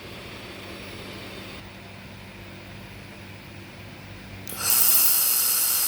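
Low steady hum from the laser welding machine, then about four and a half seconds in a loud steady hiss starts suddenly as the handheld laser welding head fires with shielding gas flowing. At 300 watts the beam is too weak to melt the stainless steel.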